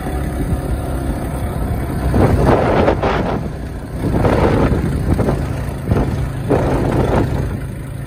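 Motorcycle engine running steadily as it rides along a dirt track, with three louder rushes of noise: one about two seconds in, one around the middle and one near the end.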